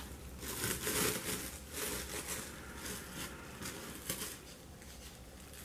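Plastic wrap crinkling as it is handled with gloved hands, in a run of rustles that are loudest about a second in and die away after about four seconds.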